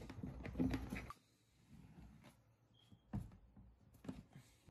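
Plastic bucket lid being handled and pried off: a cluster of knocks and scrapes in the first second, then a few isolated clicks.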